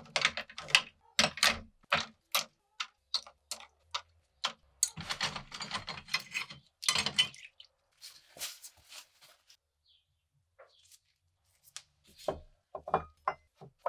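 Metal parts of a 1950s toy cap gun being handled on a wooden bench: a quick run of sharp clicks and knocks, a denser rattling scrape about five seconds in, then scattered clicks with a last cluster near the end.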